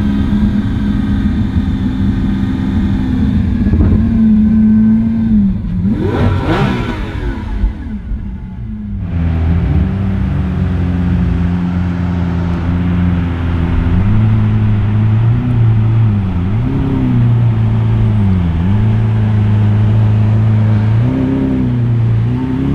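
Lamborghini Aventador Roadster's V12 engine rolling at parade pace, its note holding steady and then dipping and rising again several times as the throttle is worked. About six seconds in, one sharp rev climbs high and falls back.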